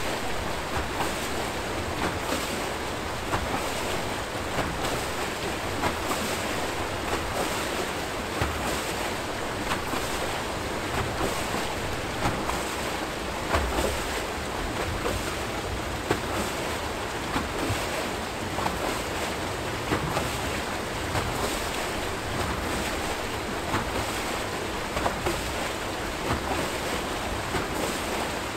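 Archimedes-screw hydro turbine turning, its outflow churning into the tailrace: a steady rush of turbulent water with frequent small splashes.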